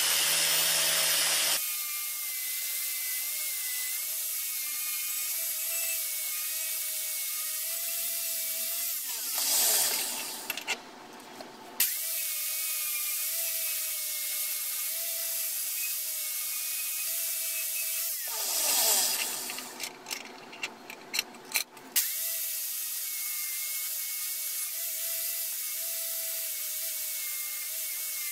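Angle grinder with a wire wheel running at speed against a steel axe head, a steady high whine. Twice, about ten and twenty seconds in, the sound turns rougher and drops away briefly before the steady whine returns.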